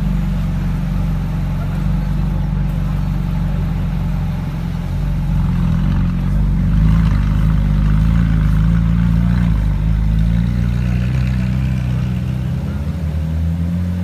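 Supercar engine idling steadily at low revs, a continuous low engine note with no revving.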